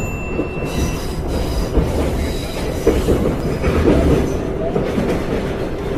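Inside a moving subway car: steady rumble of the train running on the rails, with faint high wheel squeal at times. A short electronic beep sounds at the very start.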